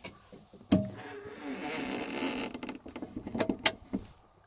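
Land Rover Discovery 2 bonnet being raised: a sharp click just under a second in, then a drawn-out creaking as it lifts, and a few quick clicks near the end.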